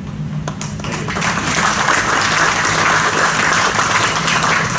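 Audience applauding: clapping starts in scattered claps, swells over the first second or two, then holds steady.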